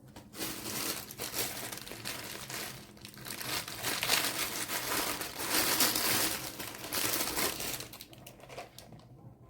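Packaging being crumpled and rustled as a gift is unwrapped, a dense crinkling that grows loudest midway and eases off near the end.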